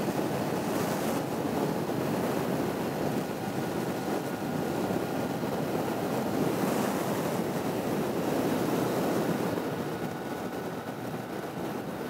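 Wind rushing and buffeting over a motorcyclist's microphone at high Autobahn speed, a dense steady roar that eases slightly near the end. A faint steady whine runs underneath.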